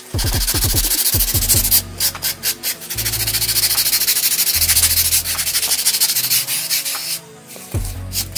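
Hand sanding with sandpaper in quick back-and-forth strokes on a model airplane part, stopping about seven seconds in. Background music plays underneath.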